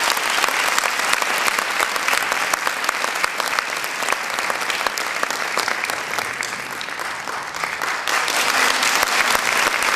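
Audience applauding: dense, steady clapping that eases a little about seven seconds in and swells again a second later.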